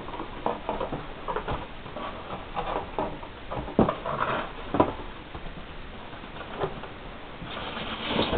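Cardboard packaging being handled: a run of taps, knocks and rustles as a white inner box is slid out of its cardboard outer box, with two sharper thumps about four and five seconds in and a brief scraping rustle near the end.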